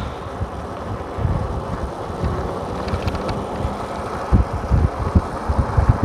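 Wind buffeting a phone microphone in gusts while riding a motorcycle, with the motorcycle's engine running steadily underneath; the gusts grow heavier near the end.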